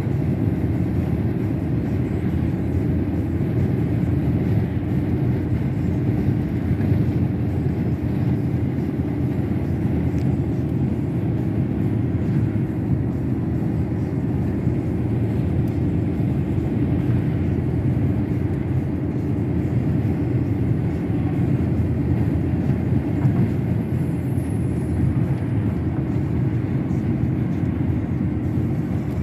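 Steady road and engine noise inside a moving car's cabin: a constant low rumble that holds level throughout.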